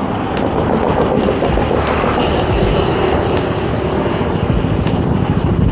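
Steady rush of wind and road noise from a fixed-gear bicycle ride, with the hum of motor traffic mixed in and a few light clicks.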